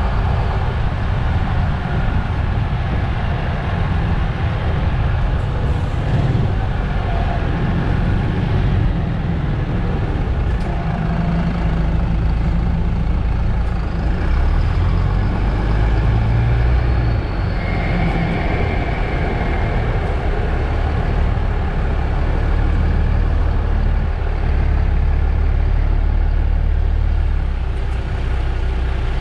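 Diesel engine of a MAN Lion's City GL articulated city bus running, heard from outside the bus. The low engine rumble is steady at first and grows stronger about halfway through.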